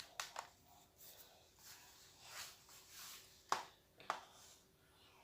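Faint handling of a drawing tablet and its packaging: soft rustles and scrapes, with two sharp clicks or taps about three and a half and four seconds in.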